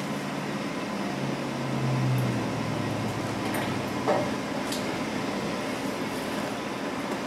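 Glass canning jars lifted out of a hot water-bath canner with a jar lifter and set down on a folded towel, giving a few faint soft knocks and clinks about four to five seconds in, over a steady kitchen hum with a low drone in the first couple of seconds.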